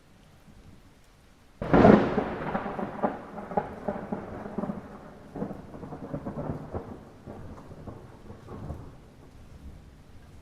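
A sharp thunderclap about two seconds in, followed by rolling, crackling thunder that fades away over the next several seconds, over a soft steady hiss of light rain.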